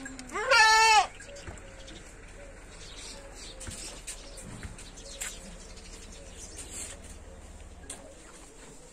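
A goat bleats once, loud and quavering, about half a second in, lasting under a second. After it there is only faint background noise with a few light clicks.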